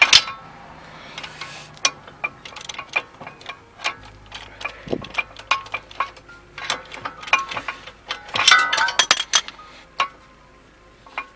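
Hand ratchet clicking in short quick runs as a bolt is backed out, with light metal clinks.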